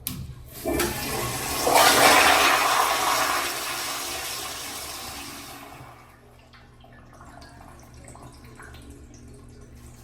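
Toto CT705 commercial toilet flushing on its flushometer valve: a click as the valve trips, then a loud rush of water that peaks within a couple of seconds and dies away about six seconds in.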